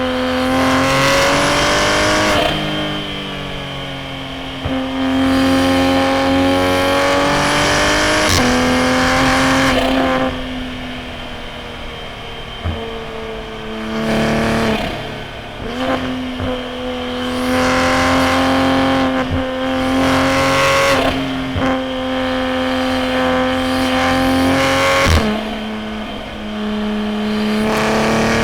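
Toyota A90 Supra's B58 turbocharged inline-six, with a straight-piped titanium single-exit exhaust, pulling hard through the gears: the engine pitch climbs and drops abruptly at each shift, several times over, with a quieter off-throttle stretch midway before it pulls again.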